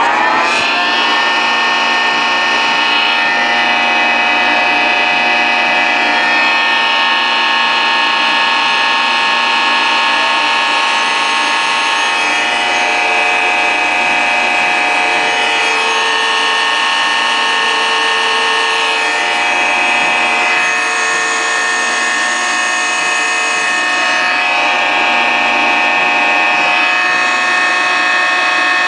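Kwik-Way SVSD Series II valve grinder's electric motors running with a steady whine. The whine finishes rising as the machine comes up to speed, about half a second in.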